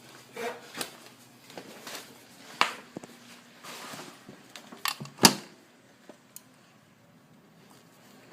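Scattered light clicks and knocks of hands and small parts being handled around a motorcycle's carburetor intake rubbers while they are oiled, the sharpest knock about five seconds in.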